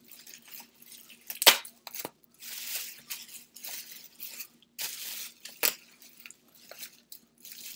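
Plastic bubble wrap crinkling and rustling as it is pulled open and unwrapped by hand, with a few sharp crackles, the loudest about a second and a half in.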